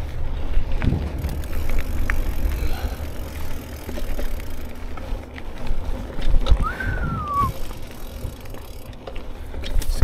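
Hardtail mountain bike ridden along a dirt trail: a steady low rumble of tyres over the ground and wind on the microphone, with frequent small rattles and knocks from the bike. About two-thirds of the way through there is a brief whistle-like sound that rises and then falls.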